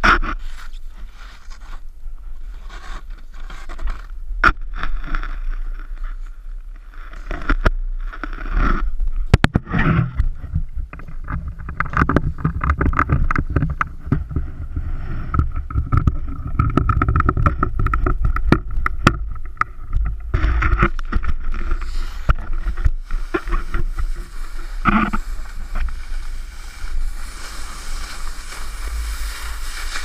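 Snowboard scraping and carving over packed snow at speed, with wind rumbling on the microphone and scattered clicks of the board chattering. A brighter hissing scrape builds in the last few seconds.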